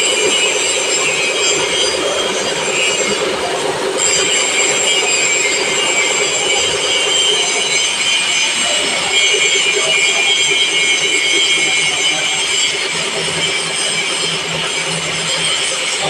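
Milling machine running, its cutter working a workpiece: steady mechanical noise with high-pitched whining tones whose pattern shifts about four seconds in and again about eight seconds in.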